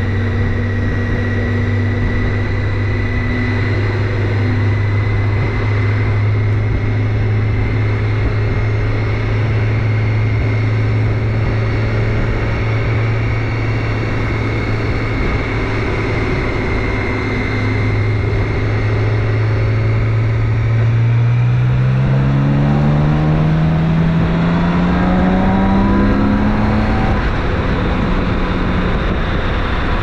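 BMW K1600 GTL's inline-six engine running at a steady low note under a rush of wind and road noise, then accelerating about two-thirds of the way through, its pitch rising smoothly for several seconds before it levels off.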